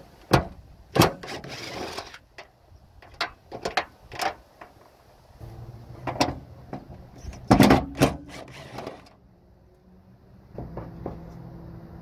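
Cordless drill-driver with a socket backing out the bolts that hold the old tailgate handle: short runs of the driver among sharp, irregular metallic clicks and knocks of the socket and parts. It goes quiet briefly about ten seconds in, then a low steady hum comes in.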